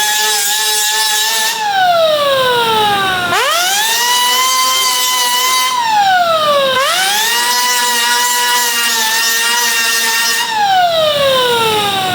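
Electric power tool's motor whining at full speed, then released to coast down in pitch, triggered again and spun back up: three coast-downs and two quick spin-ups.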